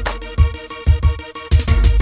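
Background music with a steady beat: a deep kick-like thump about twice a second under sustained synth-like tones.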